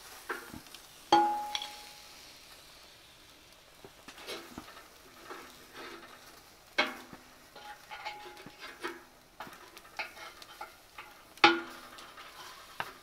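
Metal tongs clinking and scraping against the wood stove's steel firebox and grate while steaks are turned and lifted off the coals. The clinks come about a dozen times, a few ringing briefly, the loudest about a second in and near the end, over a faint sizzle of meat on the embers.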